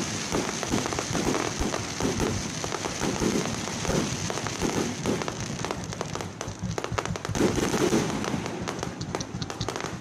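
Fireworks going off in a steady run of crackles and quick pops, thickest in the second half.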